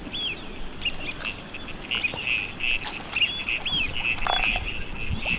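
Rapid, repeated short high chirping calls, many per second, with scattered sharp clicks and a brief louder noise a little past four seconds.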